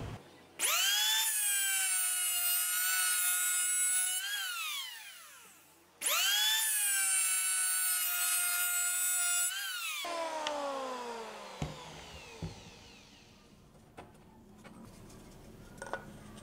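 Electric hand planer run twice along a wooden board: each time its motor whine rises as it spins up, holds steady for about three seconds while cutting, then falls away as it winds down after the switch is released. This is a test pass after the blades have been lined up with the base plate. A few light knocks follow near the end.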